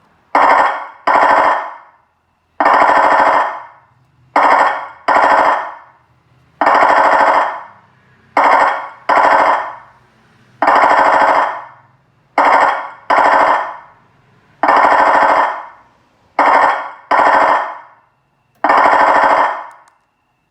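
Recorded machine-gun sound effect played back from a wireless unit's MP3 function: repeated bursts of rapid automatic fire in a looping pattern of two short bursts and then one longer burst, about every four seconds, each burst tailing off as it ends.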